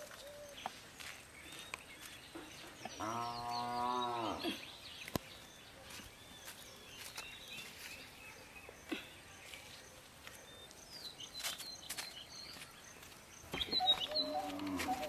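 A cow moos once, a single low call about three seconds in that lasts about a second and a half and drops in pitch at its end. Birds chirp faintly.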